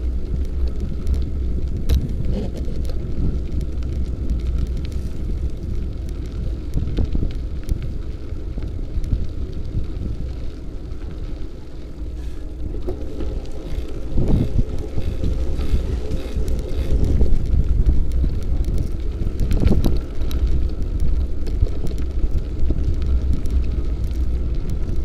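Wind rumbling on the microphone over the steady rattle and tyre noise of a bicycle riding along a trail, with a few sharp knocks.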